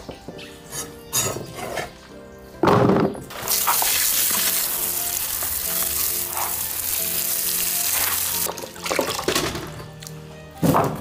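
A few knife strokes on a wooden cutting board, then water sprayed from a hose nozzle onto diced radish in a plastic basin, a steady spray for about five seconds before it stops.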